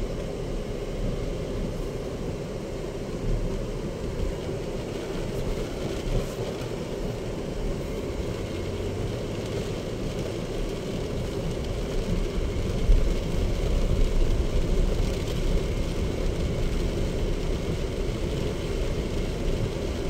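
Steady low rumble inside the cabin of a Chery Tiggo 7 Pro driving along a wet dirt forest track: tyre and road noise with the engine running. There is a single knock about two-thirds of the way through, and the rumble is a little louder after it.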